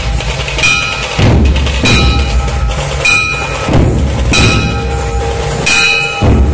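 Dhol-tasha troupe playing: heavy dhol drum beats with ringing metallic strikes on a slow, steady beat, about one and a half strokes a second.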